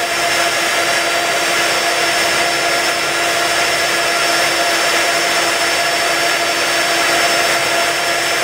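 Aviadvigatel PS-90A turbofan engines of an Ilyushin Il-78M-90A tanker running steadily on the ground: a constant rushing noise with a steady whine at two pitches.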